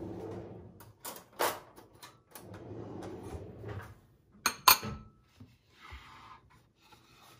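Tableware being handled on a wooden tray: sliding and rubbing, light knocks, and two sharp clinks close together a little past halfway, as a glass dish and a fork are set down.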